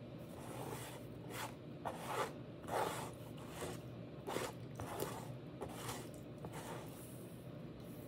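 Fingers scraping and picking food off a plastic plate, a series of short, irregular scrapes.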